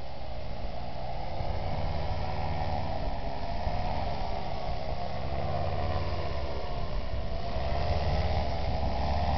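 Paramotor engine and propeller running in flight, a steady drone whose pitch wavers gently and grows slightly louder as the paramotor comes closer.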